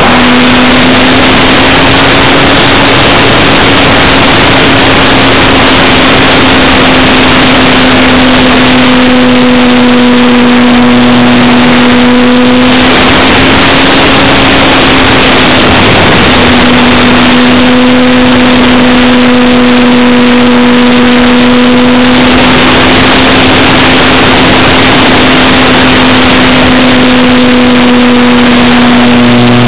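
Electric motor and propeller of a Parkzone T-28 Trojan RC plane in flight, a steady drone at one pitch, buried in loud wind rush over the plane-mounted camera's microphone. The drone wavers briefly in pitch around the middle.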